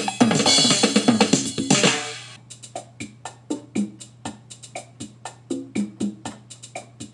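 Background music played on an electronic keyboard: a drum-machine beat with cymbals and keyboard chords. About two seconds in the cymbals drop out, leaving a sparse, steady beat of drum hits and short notes over a low steady hum.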